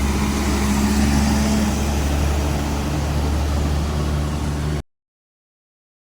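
Diesel engine of a Haryanto intercity coach idling in a steady low drone with a held hum. It cuts off abruptly to silence about three-quarters of the way through.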